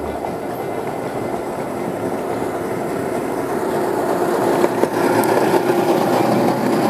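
7½-inch gauge ride-on model locomotive and riding car approaching and passing close by: a steady rumble of wheels on rail that grows louder. There are a few clicks at rail joints around five seconds in, and a steady hum joins in about halfway through.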